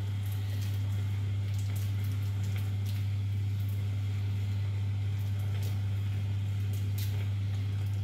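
A steady low hum, with faint sizzling and a few soft crackles as Oxo stock cubes are crumbled by hand into a pan of bolognese on the hob.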